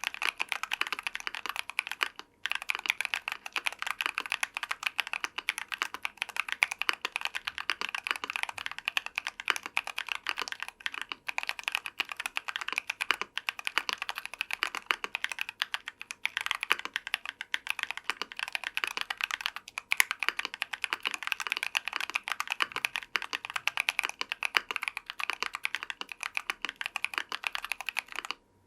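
Rapid, continuous typing on a 60% mechanical keyboard with factory-lubed TECSEE Coral 68g tactile switches, a brass plate and PBT Cherry-profile keycaps: dense keystroke clacks with a few short pauses, stopping just before the end.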